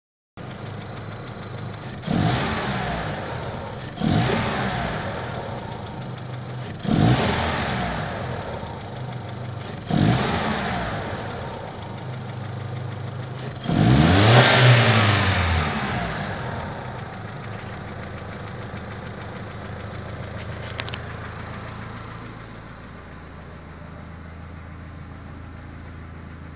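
Mitsubishi 4G63T turbocharged inline-four engine idling and blipped four times, then revved once longer and higher about halfway through before settling back to a steady idle. The engine is run to show a knock.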